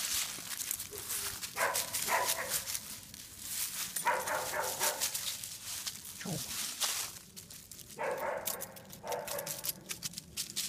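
Small dog barking in three short bouts, with dry leaves crunching and crackling underfoot in between.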